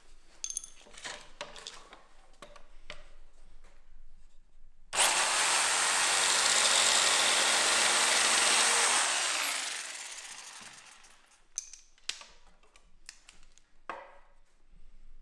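Electric jigsaw cutting wood: it starts suddenly about five seconds in, runs steadily for about four seconds, then winds down. Light knocks and clicks of wood being handled come before and after the cut.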